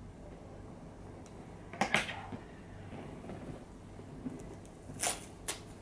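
Pet nail clippers snipping a cat's claws: a sharp double click about two seconds in, then two more short clicks near the end.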